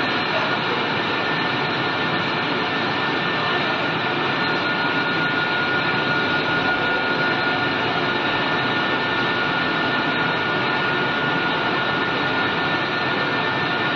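Wood pellet production machinery running steadily. It gives a loud, even mechanical noise with a constant high whine, unchanging throughout.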